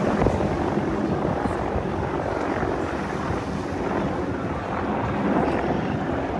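Four US Army AH-64 Apache helicopters flying past over the water: a steady drone of rotors and turbine engines.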